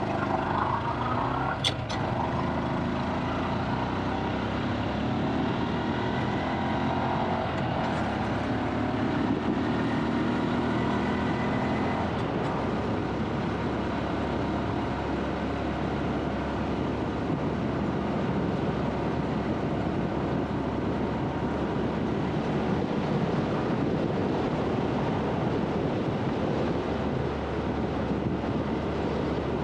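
Motorcycle engine running under way on a paved road, with wind and road noise on the helmet or bike-mounted camera. The engine note shifts over the first dozen seconds, with a single sharp tick about two seconds in, then settles into steady cruising.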